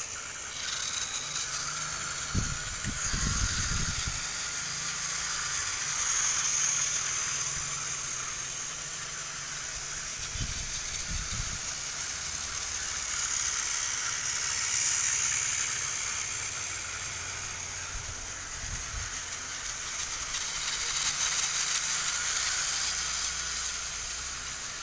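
Battery-powered toy trains running on plastic track: the steady high whir of their small motors and wheels, swelling and fading as they come near and go by. A few low thuds come about three seconds in, near the middle and later on.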